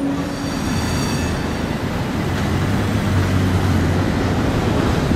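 Electric street tram running at a stop. A high whine of several pitches fades out in the first second and a half. From about three seconds in a low steady hum builds under the rumble.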